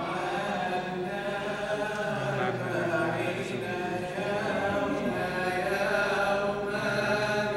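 Coptic Orthodox liturgical chant: voices singing a hymn in long held, continuous notes during the distribution of Communion.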